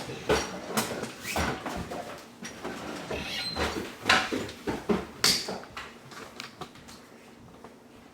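Irregular knocks, clicks and rustling of kitchen items being handled, such as containers, lids and utensils, as fruit is packed. The sounds thin out over the last couple of seconds.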